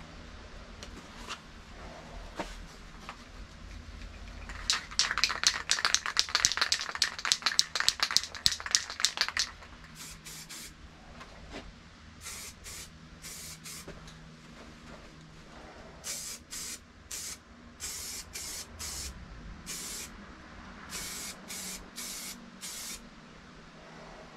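An aerosol can of car paint primer is shaken hard, its mixing ball rattling fast for about five seconds. Then comes a string of short hissing spray bursts as the frame is coated.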